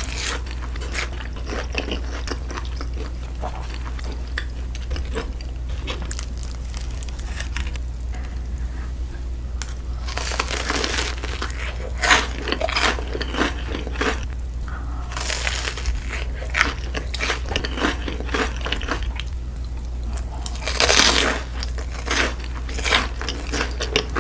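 Close-miked biting and chewing of crunchy fried food, with several louder crunches scattered through, over a steady low hum.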